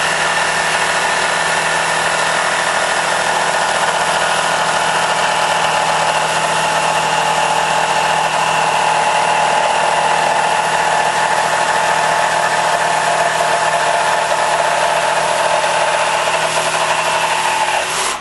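Battery-powered jigsaw with a timber blade running at full speed, cutting straight through plywood on its straight up-and-down setting. The steady saw noise cuts off suddenly near the end.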